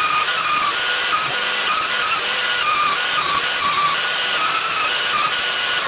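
Handheld belt sander clamped upside down in a vise, running continuously with its trigger zip-tied on, sanding the edge of a laminated plywood ring. A steady whine with strong hiss, its pitch wavering a little.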